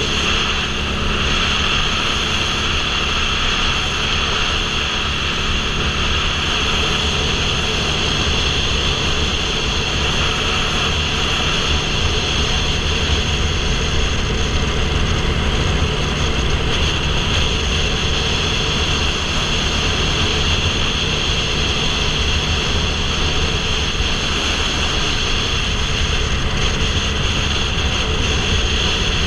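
Motorcycle engine running steadily at highway cruising speed, under a constant rush of wind noise on a helmet-mounted microphone.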